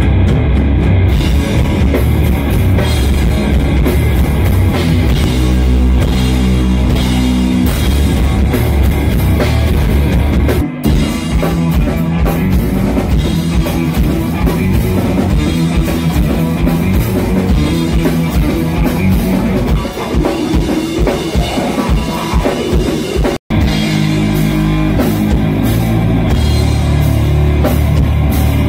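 Stoner doom metal band playing live: heavily distorted electric guitars grinding out slow, heavy riffs over a pounding drum kit, loud and bass-heavy. The sound cuts out for an instant about two-thirds of the way through.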